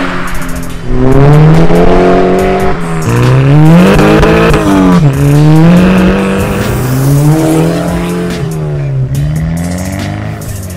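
Volkswagen Golf GTI MK6's turbocharged 2.0-litre four-cylinder running through an XForce cat-back exhaust under hard driving. The revs climb and drop again several times as it pulls through the gears, with the steepest climb about four seconds in.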